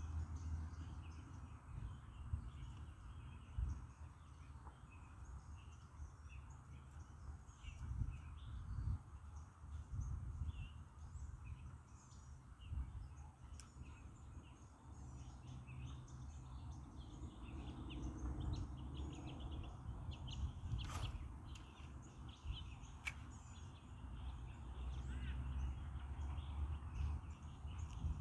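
Many birds calling and chirping in quick short notes over a low, uneven rumble, with two sharp clicks a couple of seconds apart near the end.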